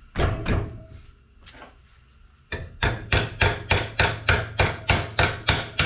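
Hammer striking a scored metal tab on a fabricated shifter bracket, driven near its base to bend it: two blows, then a steady run of about a dozen blows, roughly three a second.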